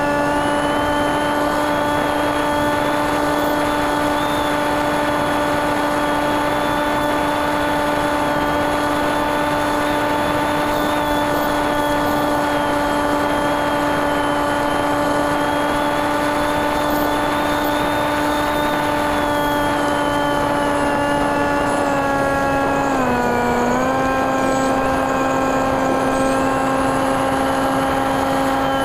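TekSumo's NTM 28-26 brushless motor driving an 8x6 propeller, heard from the onboard camera: a steady propeller drone holding one pitch, with a faint higher whine above it and air rushing past. Late on, the pitch dips for about a second, then comes back up.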